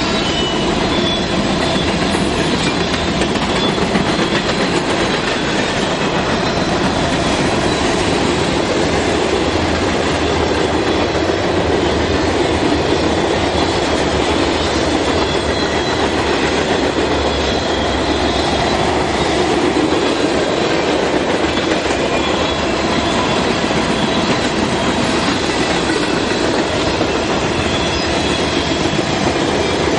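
Freight train cars rolling past close by: a steady, loud rumble and clickety-clack of steel wheels on the rails.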